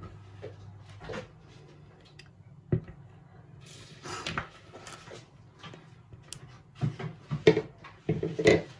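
Silicone spatula scraping thick banana cake batter out of a plastic mixing bowl into a baking pan, with scattered knocks and taps of bowl and spatula against the pan. There is a sharp knock about three seconds in and a run of louder taps near the end.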